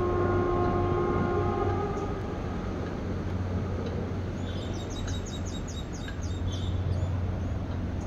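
A train horn sounds a steady held note for about two seconds and then fades out, over a steady low rumble. Around the middle, a bird gives a quick run of about eight high chirps.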